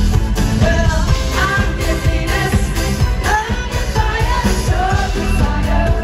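Live pop band playing through a concert PA, with a singer's vocal line over drums and a heavy bass, heard from within the audience.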